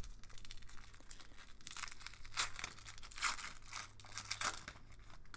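Foil wrapper of an Upper Deck Series 1 hockey card pack being torn open and crinkled: a string of short, irregular crackles and rustles.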